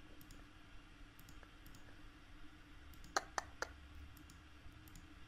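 Computer mouse clicking, each click setting a point of a selection outline: faint scattered clicks, then three sharper clicks in quick succession about three seconds in, over a faint steady hum.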